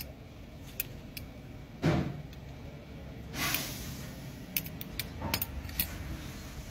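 Metal belt buckle and its prong clicking and clinking as they are handled, a string of sharp light clicks. A louder dull thump comes about two seconds in, and a brief rustle about halfway.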